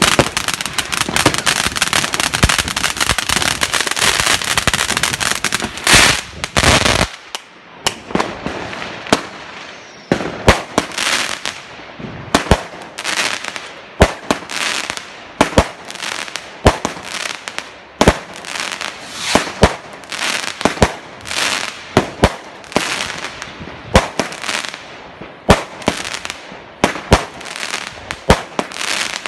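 Fireworks: dense, continuous crackling for the first seven seconds, then after an abrupt change a long run of sharp bangs about one a second, many trailed by brief crackling.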